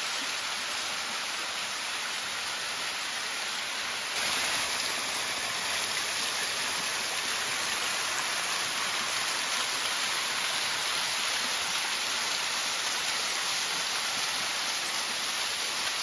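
Small waterfall pouring down a sloping rock face: a steady rushing and splashing of water, a little louder from about four seconds in.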